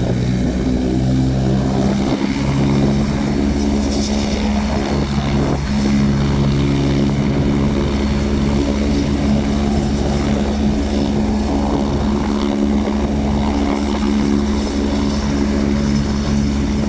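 AgustaWestland AW109 air ambulance helicopter running on the ground with its rotor turning, its twin turbines and main rotor making a steady, even whine and thrum that holds one pitch before lift-off.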